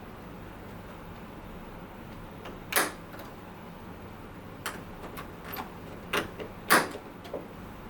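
Clicks and knocks of the Shield 550 air scrubber's casing and filter being handled, with two louder knocks, one about three seconds in and one near the end, over a steady low hum.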